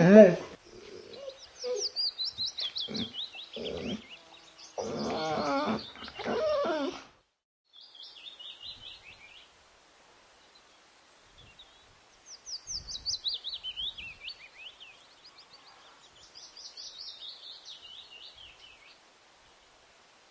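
Whining, howl-like fox calls, the loudest right at the start, then several shorter calls over the next seven seconds. After that a songbird sings three phrases of quick, high, descending trills with pauses between.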